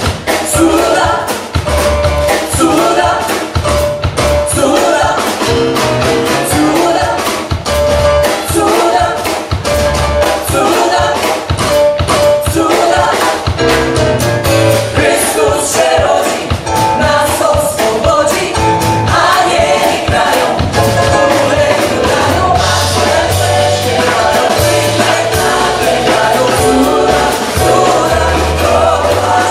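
Amplified choir singing a song in several voices, mostly women's, backed by a live band with electric bass guitar and drum kit keeping a steady beat.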